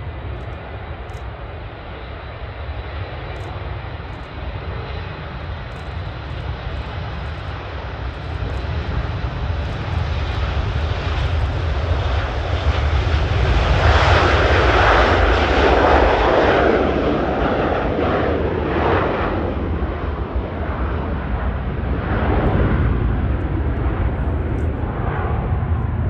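Boeing 727's three Pratt & Whitney JT8D turbofans at takeoff power. The rumble grows through the takeoff roll, is loudest as the jet lifts off and passes about 14 seconds in, then carries on in rolling swells as it climbs away.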